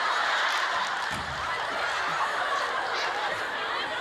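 Studio audience laughing, many voices together at a steady level, with a low thump about a second in.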